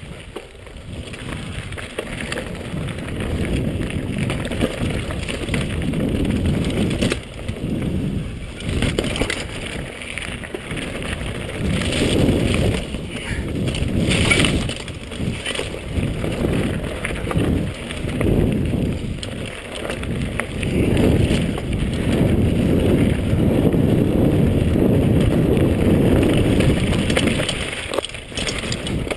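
Mountain bike riding fast down a dirt and gravel trail: wind rumbling on the microphone over the rattle and crunch of the tyres and bike on the rough ground, rising and falling with speed.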